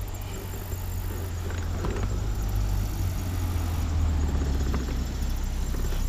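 Low rumble of wind buffeting the camera's microphone, growing louder over the first few seconds.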